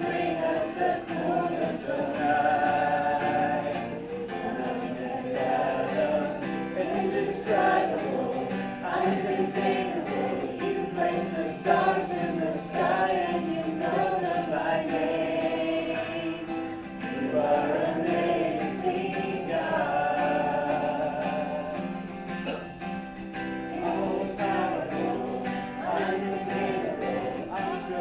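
A congregation singing a worship song together, several voices on one melody, with light instrumental accompaniment.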